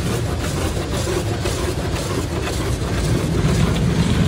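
High-pressure water jets of a touchless car wash spraying against the car's windows and body, heard from inside the cabin as a steady rush over a low rumble that grows a little louder near the end.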